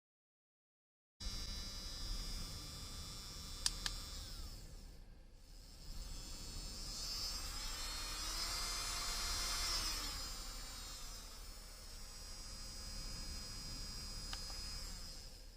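Small portable electric nail drill's motor whirring at high speed with a thin high whine, starting after about a second of silence. Around the middle the whine shifts in pitch and swells, then settles, and two short clicks come through, one about four seconds in and one near the end.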